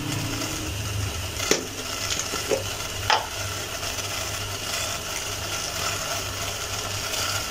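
Water coming to a simmer in a steel pot on a stove burner: a steady hiss of small bubbles with a low hum beneath, and two light clicks about a second and a half apart.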